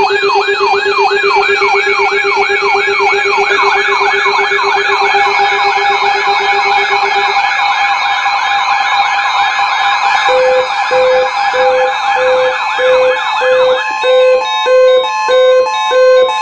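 Several electronic siren and alarm tones layered together: a siren warbling up and down about three times a second over a steady lower tone that stops about seven seconds in, then from about ten seconds in a beeping tone pulsing a little under twice a second beside higher steady tones. It works as an emergency alert sound ahead of a severe thunderstorm warning.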